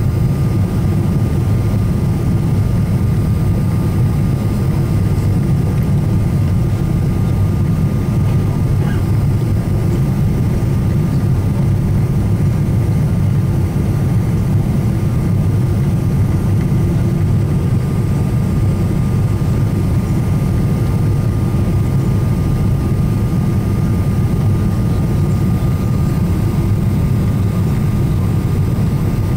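Steady cabin noise of a Boeing 777-300ER with its GE90 engines running: a low rumble that does not change, with a faint steady high tone on top.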